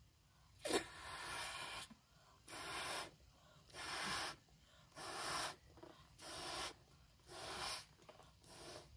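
A green rubber balloon being blown up by mouth: about seven breathy blows into it, each about half a second long, a little over a second apart, with quiet breaths taken between.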